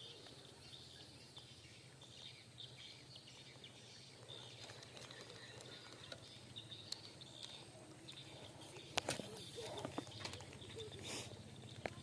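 Faint outdoor ambience: steady high-pitched chirping of wild creatures over a low hum, with a few sharp clicks about nine seconds in.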